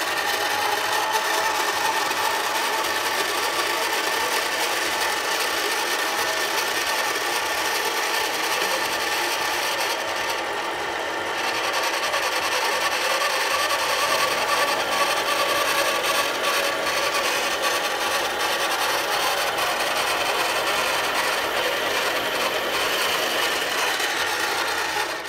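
Harbor Freight mini metal lathe taking a turning pass on a steel bar under auto feed: the spindle, change gears and leadscrew running while the tool cuts, a steady whirring noise with a faint whine. It cuts off suddenly at the end as the lathe is stopped.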